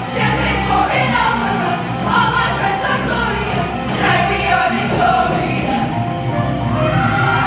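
Women's show choir singing in harmony, accompanied by a live band.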